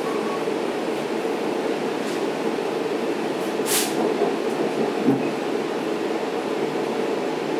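Steady rumble of wheels on track heard from inside a C3 bilevel passenger coach running at speed, as another train passes close alongside. A short hiss about three and a half seconds in, and a light knock about five seconds in.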